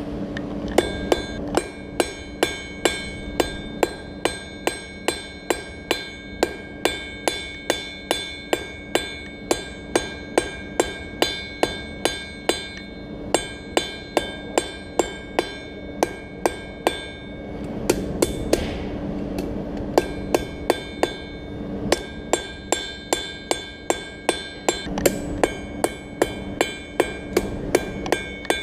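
A blacksmith's hammer strikes hot steel on an anvil in a steady rhythm of about three blows a second, each blow ringing at the same few high notes. The hammering pauses briefly twice, the second pause lasting a couple of seconds.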